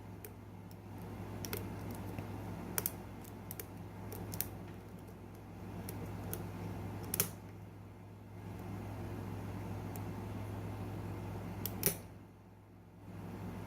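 Lock pick and tension bar working the pins of a pin-tumbler lock: scattered light clicks at irregular intervals, over a steady low hum.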